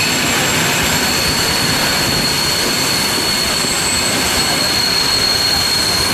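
Steady running noise of electric Flåm Railway trains passing each other on adjacent tracks, heard through an open carriage window: wheels on rail and rushing air, with a thin, steady high-pitched whine over it.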